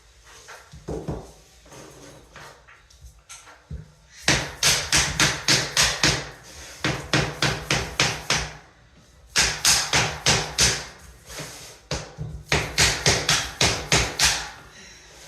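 Hammer tapping a luxury vinyl plank into place, in several quick runs of sharp taps about four a second with short pauses between them, knocking the plank's joint closed.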